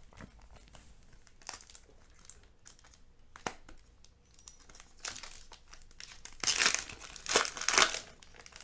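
Foil trading-card pack wrapper crinkled and torn open by hand. There are a few faint clicks at first, then several short, louder bursts of crinkling in the second half.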